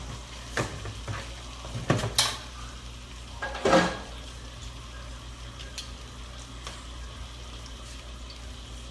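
A beef chuck roast searing in hot oil and butter in a skillet, sizzling steadily, with a few clanks of cookware in the first four seconds.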